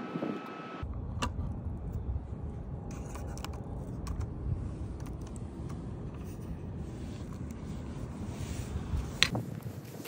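Handling of a broken HP Pavilion laptop keyboard deck, with a few plastic clicks and scrapes over a steady low wind rumble on the microphone. A sharper click comes near the end.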